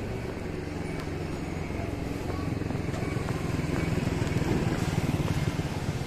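A motor vehicle engine running close by, a steady low hum that grows louder over the last few seconds.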